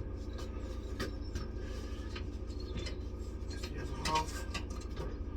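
Small clicks and, about four seconds in, a louder metallic clink as the loose parts of a Tyron safety band are handled, over a steady low hum.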